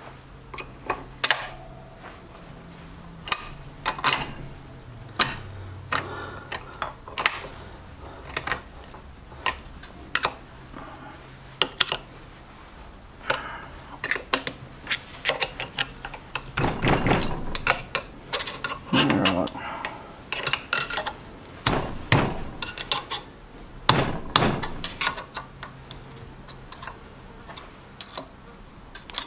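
Steel clutch parts of a Ford C4 automatic transmission clinking and tapping as they are handled and fitted into the clutch drum by hand: irregular sharp metal-on-metal clicks, busier in the second half.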